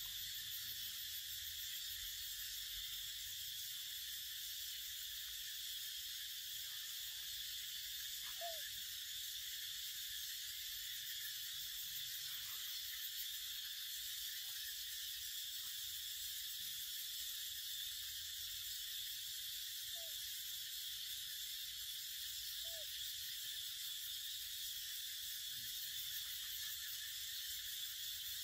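Steady high-pitched hiss of forest background, with three faint short chirps, one about a third of the way in and two more after the middle.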